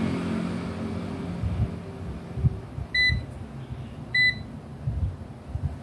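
A digital multimeter beeps twice, short and high, about a second apart, while the test probes knock softly against the circuit board.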